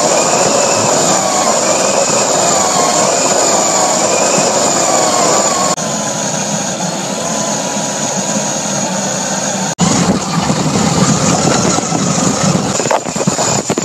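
1/16 Heng Long RC Type 99 tank driving at speed: its Tamiya 540 electric drive motors whine, rising and falling in pitch with the throttle, over the steady rattle of the plastic tracks and road wheels. The sound breaks off abruptly about six and again about ten seconds in.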